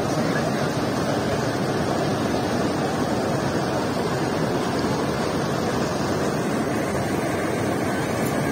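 River water rushing and churning past stone bridge piers in a steady, unbroken rush.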